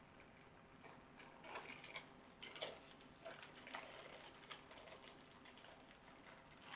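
Faint, irregular clicks and rustles of a small plastic earphone shirt clip and its packaging being handled, mostly in the middle of the stretch.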